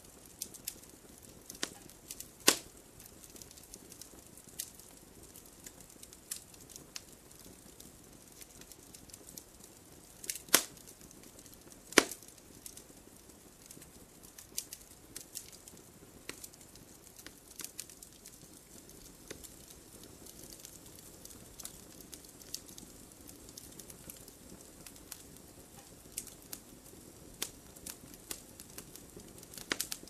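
Wood campfire crackling: a soft steady hiss broken by scattered sharp pops, the loudest about two and a half seconds in and twice more around ten and twelve seconds in.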